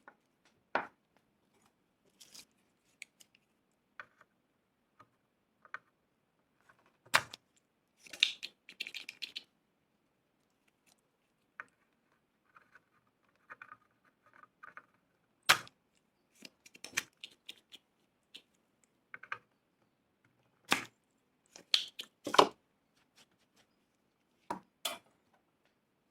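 Sporadic sharp clicks and taps with a few short bursts of rustling: small electronic parts and hand tools handled on a workbench while an electrolytic capacitor is swapped on a TV power-supply board.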